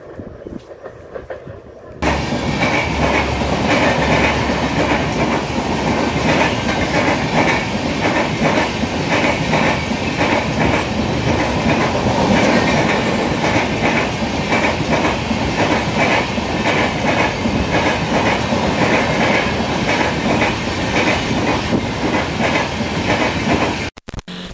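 Kamakhya–LTT Superfast Express passing close by at speed: a loud, steady rumble of coach wheels on the rails with rapid clickety-clack over the rail joints. It starts suddenly about two seconds in, after a fainter distant train sound, and cuts off just before the end.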